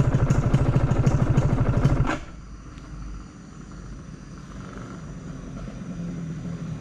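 Motorcycle engine and exhaust running loud with a rapid, even pulsing beat for about two seconds, then dropping off abruptly to a much quieter low rumble that slowly grows louder toward the end.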